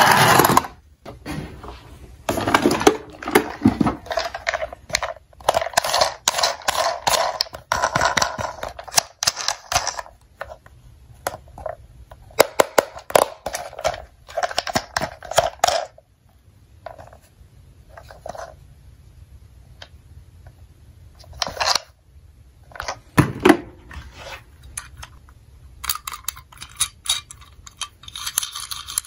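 Plastic toy vehicles being handled: bursts of clicks, knocks and rattles of small plastic bodies and wheels, with short quiet gaps. Near the end a denser, higher rattling sound starts and keeps on.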